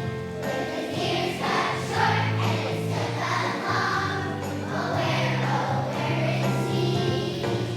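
Young children's choir singing a song over instrumental accompaniment.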